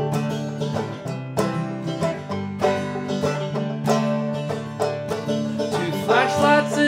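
Banjo picking over a Taylor koa acoustic guitar in a bluegrass-style instrumental opening. A man's singing voice comes in near the end.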